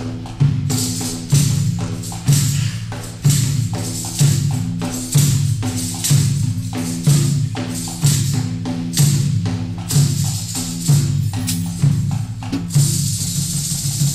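Live hand-drum percussion from a barrel drum and a frame drum: a heavy beat about once a second with quicker strokes between. Near the end the beat gives way to a continuous roll.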